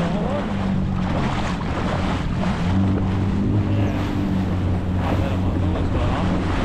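Jet ski engine running steadily under way, a low hum with water washing against the hull and wind buffeting the microphone.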